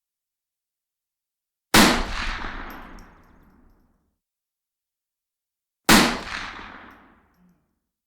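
Two single rifle shots about four seconds apart, each a sharp crack followed by an echoing tail that fades over about two seconds.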